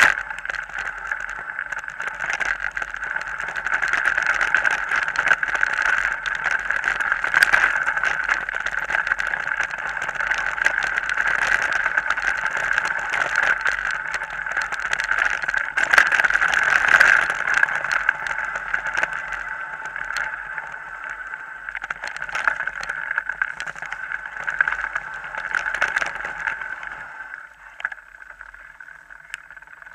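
Mountain bike riding over a rough dirt track, heard from a camera mounted on the bike or rider: a steady rush of wind and tyre noise with frequent small knocks and rattles from the bumps. It quietens somewhat near the end.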